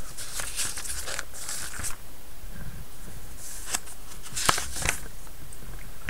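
Pages of an old book being turned by hand: paper rustling in two bouts, with a sharp click about four and a half seconds in.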